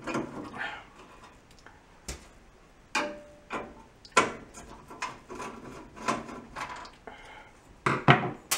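A screwdriver and metal parts clicking and scraping against a gas range's sheet-metal stovetop as a burner's spark igniter electrode is unscrewed and lifted out. The clicks and light scrapes come irregularly, and the loudest clicks fall near the end.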